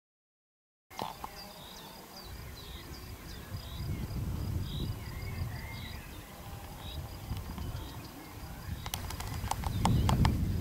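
Starting about a second in, birds chirping in short repeated calls and a steady high insect trill, over wind rumbling on the microphone that grows louder near the end. A quick run of clicks comes about nine seconds in.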